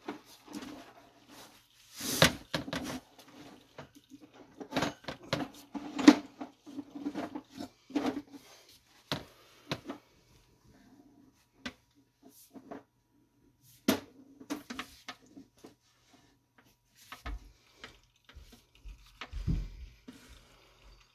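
Irregular knocks and clattering, loudest about two and six seconds in, with a few dull low thumps near the end.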